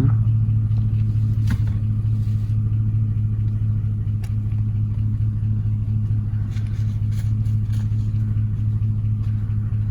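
Vehicle engine running steadily, a constant low hum with a few faint clicks.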